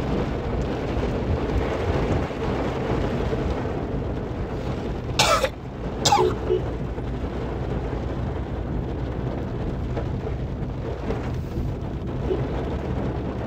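Cabin noise of a Maruti Suzuki Baleno driving on a wet road in rain: a steady low rumble of engine and tyres on the wet surface. Two short, loud sounds stand out, one about five seconds in and one about six.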